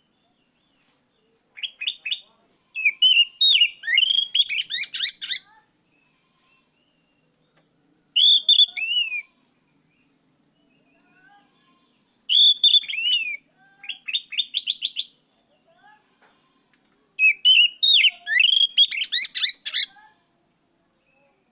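Oriental magpie-robin (kacer) singing in four bursts of song, each a couple of seconds long with short pauses between. The bursts are made of rapid chirps and fast whistles that sweep up and down.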